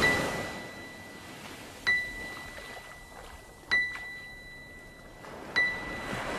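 A high, pure ding struck four times about two seconds apart, each ringing on and fading away, over a faint hiss.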